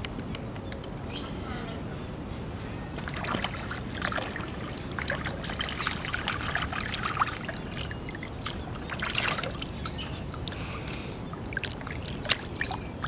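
Cleaned fish being rinsed by hand in a plastic basin of water: irregular splashing and sloshing, busiest between about three and ten seconds in.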